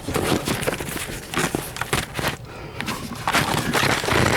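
Close rustling, scraping and irregular knocks, the sound of a camera being handled and moved.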